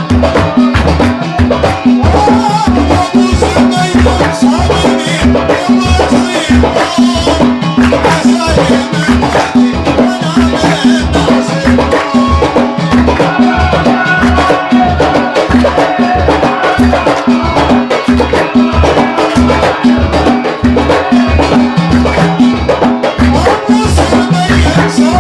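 Gulf folk music of the khabiti style: a fast, steady drum rhythm with a melody running over it.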